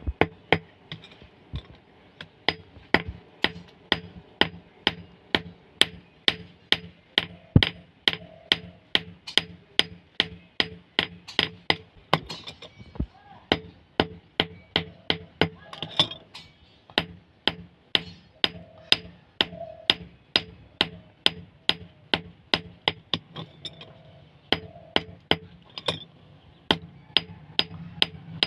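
A hammer striking steel in a steady rhythm, about two to three blows a second, each blow ringing briefly: typical of forging a chisel on an anvil. A faint steady low hum runs underneath.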